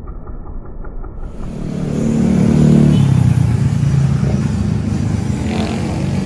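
A motor vehicle's engine running close by, swelling to its loudest about three seconds in, dropping in pitch, then easing off as it passes.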